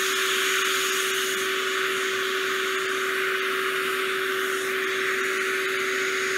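Vacuum cleaner running steadily: a constant whir with one steady hum under it.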